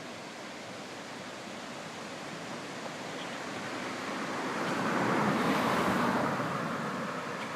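A steady outdoor rushing noise that swells about four seconds in and eases off toward the end.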